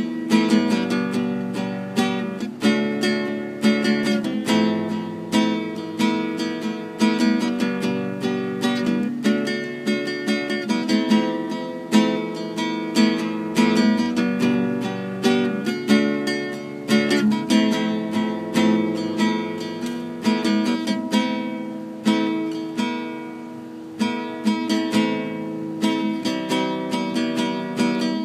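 Solo classical-style acoustic guitar, picked and strummed in a steady rhythm through changing chords, with no singing. It plays softer for a couple of seconds about three-quarters of the way through.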